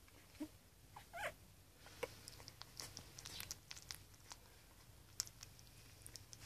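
Newborn puppies, a faint short squeak about a second in, then many small wet clicks of suckling and mouthing at a person's fingers.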